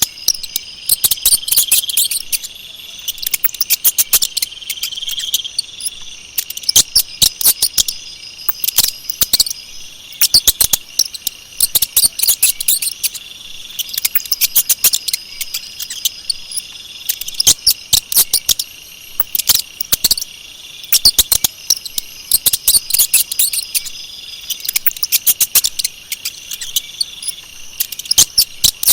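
Mouse squeaking: rapid clusters of sharp, high-pitched chirps recurring every second or so, over a steady high trill in the background.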